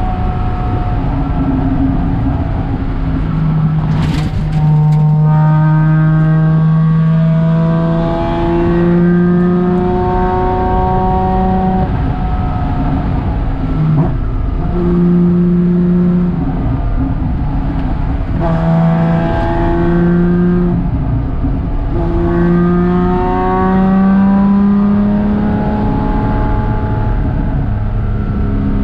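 Porsche Cayman 987.2's flat-six engine, heard from inside the cabin at speed. Its pitch climbs in several long pulls, each broken off by a drop as the car comes off the throttle or changes gear. A steady low road rumble runs underneath.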